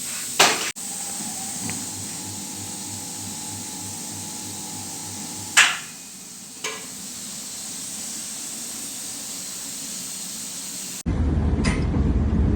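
Tools knocking sharply on a wheel during a tyre repair, three knocks over a steady hiss. About eleven seconds in, the sound cuts to a louder, steady low rumble.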